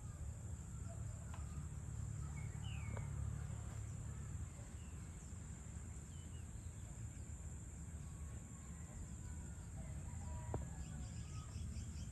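Evening outdoor ambience: a steady high-pitched insect drone over a low steady rumble, with scattered short bird chirps and a burst of rapid chattering calls near the end.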